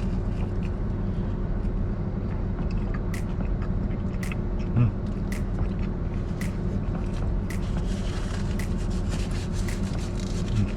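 Steady low hum of an idling car engine heard inside the cabin. From about three seconds in, sharp ticks come about once a second, and there is a single low thump near the middle.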